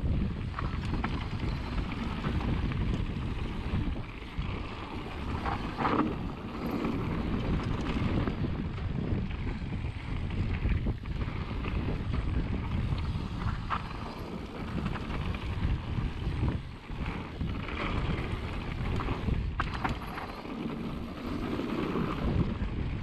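Wind buffeting the microphone during a fast mountain-bike descent on a dirt forest singletrack, with tyre noise and occasional knocks and rattles from the bike over bumps.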